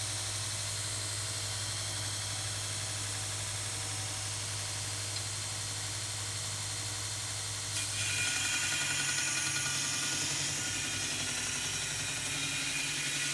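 2x72 belt grinder running steadily with a low motor hum. About eight seconds in, a louder bright rushing hiss joins it as metal is ground against the moving belt, lasting to the end.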